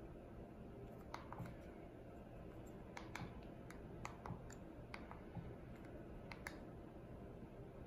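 Soft clicks of the buttons on a Xiaomi Mijia projector's remote control being pressed, about a dozen at uneven intervals and often in quick pairs, over a low steady hum.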